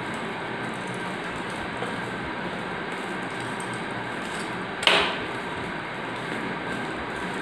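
Plastic film wrapped around a stack of nested clear plastic containers being cut open and peeled by hand, with one sharp crack of plastic about five seconds in, over a steady background hiss.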